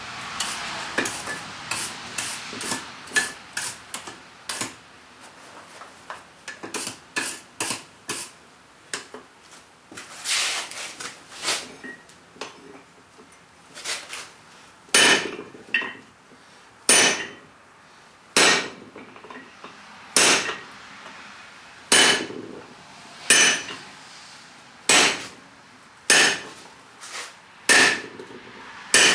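Hammer blows on hot steel at the anvil, forging a groove around a hammer head. A run of quicker, lighter strikes gives way about halfway through to heavy single blows about every second and a half, each ringing briefly.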